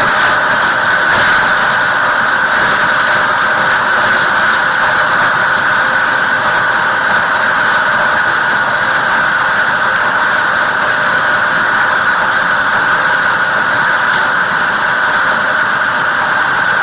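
Plastic grinder running steadily: a loud, even machine noise with a constant whine, and a few faint clatters near the start.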